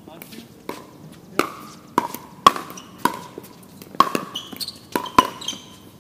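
Pickleball rally: hard paddles striking a plastic pickleball in about ten sharp pops, roughly two a second, each with a brief hollow ping.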